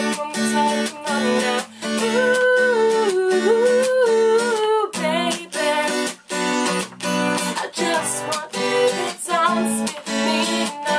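Acoustic guitar strummed in a steady rhythm while a woman sings along, her sung line clearest from about two to five seconds in.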